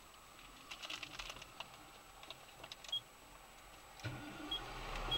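Faint scattered clicks and rustling inside a parked car's cabin, with three short high beeps from about three seconds in. A low hum comes up near the end.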